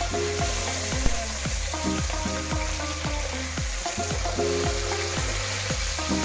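Burger patties sizzling steadily as they fry in a pan, with background music playing over it.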